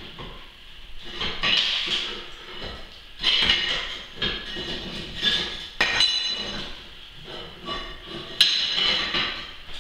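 Hand tool tapping and scraping against glass block and mortar: irregular sharp clinks and knocks with a bright ringing edge, loudest about three seconds in and again near the end.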